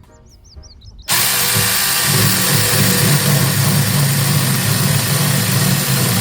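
Battery-powered mini chainsaw starting suddenly about a second in and then running loud and steady.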